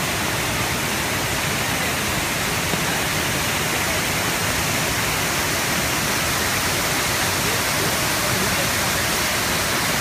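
A multi-tiered waterfall pouring into a pool, a steady rushing noise of falling and splashing water that holds at an even level.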